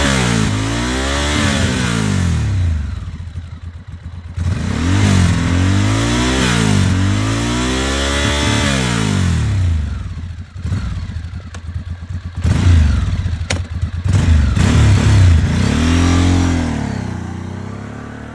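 Stock exhaust of a 2006 Ducati Monster S2R's air-cooled L-twin engine, revved in a series of blips that rise and fall in pitch between lower-rev stretches. A few sharp cracks come through around the middle, and the revs settle and quieten near the end.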